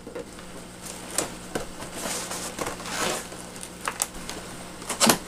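Cardboard box and packaging being handled and opened, rustling and crinkling with scattered clicks and a sharp knock near the end.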